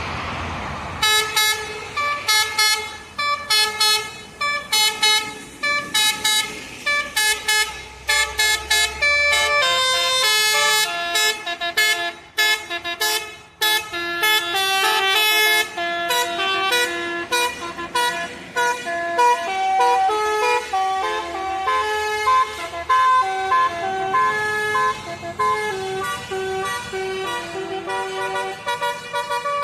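Tour-bus telolet horn, a set of air horns played in sequence, sounding rapid tune-like patterns of short notes at changing pitches, with a bus engine rumbling underneath for the first ten seconds or so.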